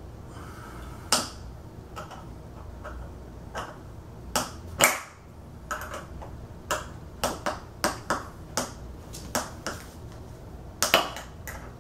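Sharp metal clicks of a small flat IKEA wrench knocking on a threaded metal anchor as it is turned a bit at a time into the bed leg. The clicks are sparse at first and come about every half second from about four seconds in.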